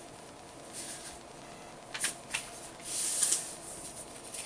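A sheet of printer paper being folded in half and creased flat by hand: a few short rustles and crinkles, the longest and loudest about three seconds in.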